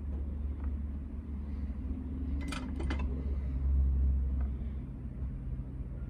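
Steady low electrical hum of bench equipment, with a quick cluster of three or four light clicks of small tools about two and a half seconds in.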